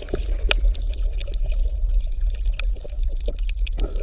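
Underwater sound: a steady low rumble under a dense scatter of small clicks and crackles, with one sharp click about half a second in.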